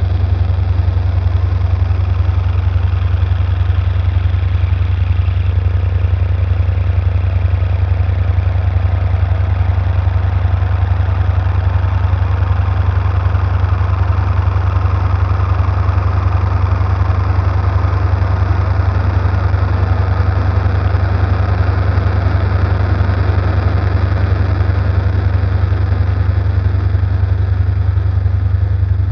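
Steady, loud low electronic drone under a hissing, engine-like haze that swells in the middle and then fades away: an ambient sound-design soundtrack.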